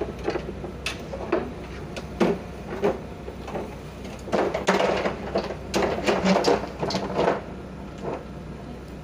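Knocks and clattering as a portable wheelchair boarding ramp is handled and set in place at an open train door, busiest in the second half, over a steady low hum.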